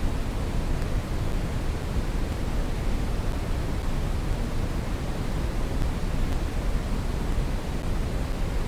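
Brown noise: a steady, even rush of noise, heaviest in the bass and fading toward the treble, with no changes.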